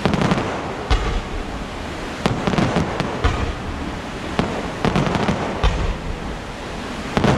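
Fireworks display with aerial shells bursting in a rapid, uneven series of bangs, about a dozen in seven seconds, over a continuous rumble.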